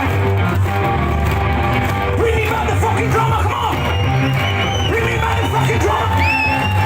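Loud live rock music from a two-piece guitar-and-drums band: electric guitar and drums playing together, with yelled singing.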